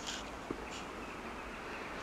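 Quiet outdoor background noise with faint rustling and a single soft tap about a quarter of the way in.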